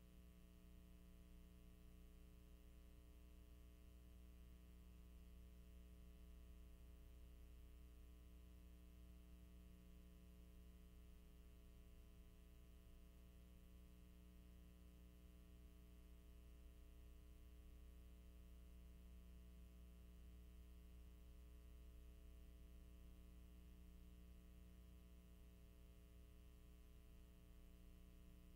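Near silence: a faint, steady electrical hum with light hiss.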